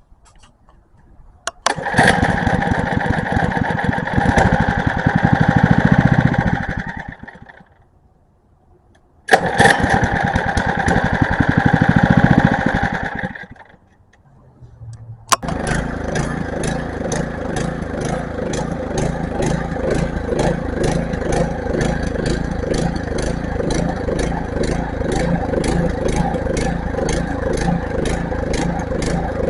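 Small gas engine driving a pump, started twice and each time running about five seconds before fading out and dying; on the third try, about fifteen seconds in, it catches and keeps running with a steady pulsing beat. It is running rough and bogging down, not smoothly, and the owners suspect the pump is loading it down.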